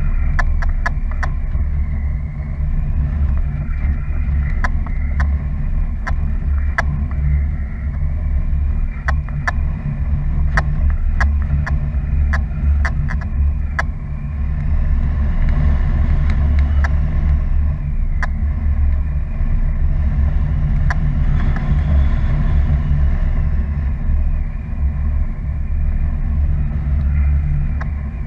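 Airflow buffeting an action camera's microphone in paraglider flight: a heavy, steady low rumble, with scattered sharp ticks through the first half.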